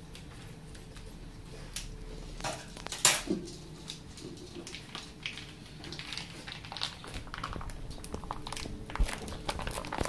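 Scissors cutting open a plastic food pouch, with a sharp snip about three seconds in, then the plastic crinkling and rustling as the pouch is handled and squeezed.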